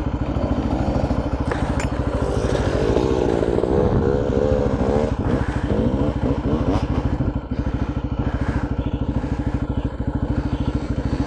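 Two-stroke single-cylinder engine of a Yamaha Blaster ATV idling steadily with a rapid, even pulse. Between about two and five seconds in, another engine revs up and down a few times.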